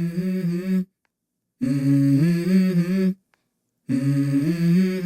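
Background music: a hummed or sung vocal melody in held notes, broken three times by sudden dead silences.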